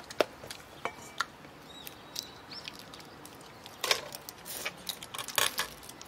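Table noises of a seafood meal: scattered light clicks and knocks of shells, metal tongs and steel bowls, with a couple of louder clatters about four and five and a half seconds in.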